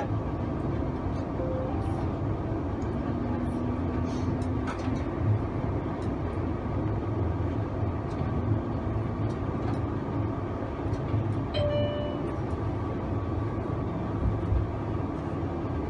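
Streetcar running along its rails, a steady low rumble with motor hum heard from inside the cab. A short pitched tone sounds near the end.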